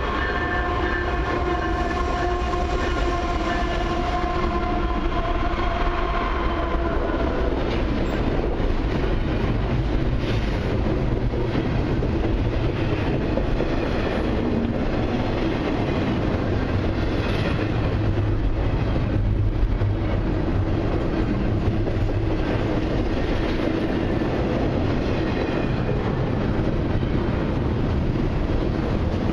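Freight train passing: the lead diesel locomotive's horn sounds, dipping slightly in pitch as it goes by, and stops about seven seconds in. Then comes the steady rumble of the locomotives and the clatter of wheels on rail joints as the long line of intermodal and autorack cars rolls past.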